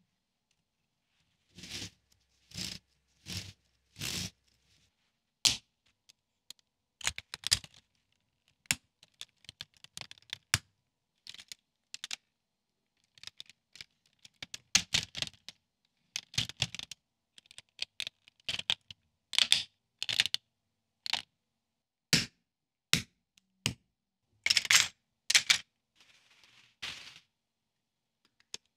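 Plastic Lego Technic parts clicking and clattering as they are handled and snapped together: a long series of separate sharp clicks and short rattles with quiet gaps between them.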